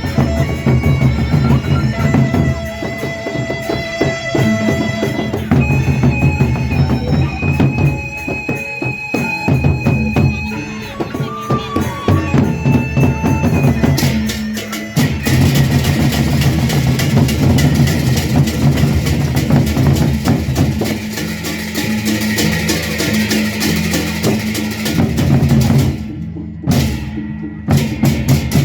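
Traditional drum ensemble music. For the first half a reed wind instrument plays a wavering melody over pounding low drums. From about halfway the melody drops out into dense, fast drumming with a bright metallic wash, breaking into a few hard separate strokes near the end.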